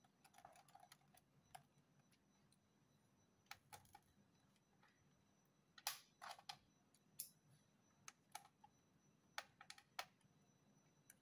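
Faint, irregular sharp clicks and taps of a screwdriver working the screws on the plastic underside of an Acer laptop, with tools handled nearby, about a dozen clicks in all.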